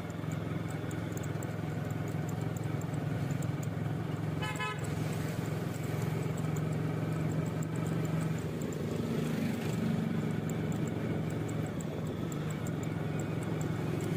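Town street traffic: a steady engine drone, with one short vehicle horn toot about four and a half seconds in.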